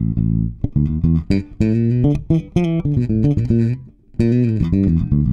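Electric bass played slap-style through a Fuhrmann Bass Compressor pedal blending compressed and dry signal in parallel. A fast run of short slapped notes is heard, with a brief break about four seconds in and then more notes. The percussive slap attack comes through clearly rather than being squashed.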